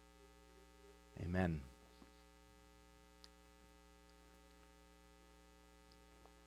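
Steady electrical mains hum under near silence, with one faint click about three seconds in.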